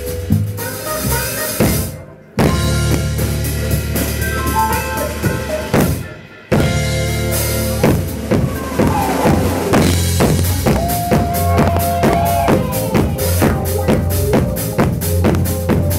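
Live band playing an upbeat number, with a drum kit keeping a steady beat on bass drum and snare. The music drops out completely twice for a moment, about two seconds and about six seconds in.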